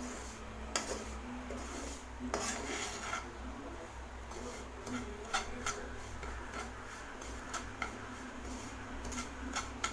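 Semolina being stirred as it roasts in ghee in a pan: a spoon scraping along the pan with scattered light clinks and taps.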